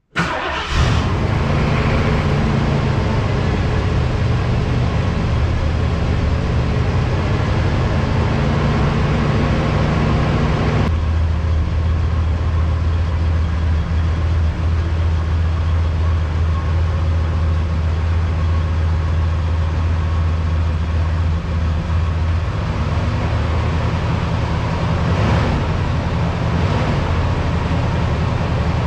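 1977 Ford LTD's V8 engine running steadily at low speed while the car is slowly backed up; its low note shifts about eleven seconds in and again near twenty-two seconds.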